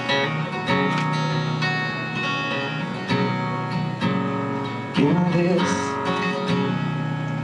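Acoustic guitar strumming chords of a song, with a short sung vocal phrase about five seconds in.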